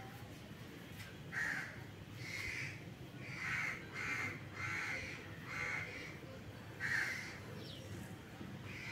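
A crow cawing repeatedly, about eight short harsh caws at uneven intervals.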